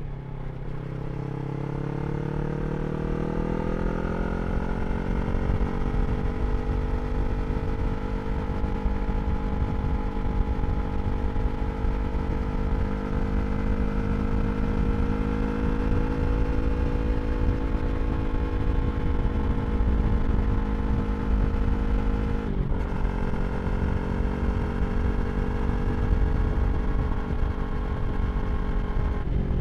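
A Yamaha R3's parallel-twin engine through an Akrapovič slip-on exhaust, pulling up through a gear with rising revs for about five seconds, then cruising at steady revs. It makes a quick upshift about 22 seconds in and another near the end, over steady wind rumble.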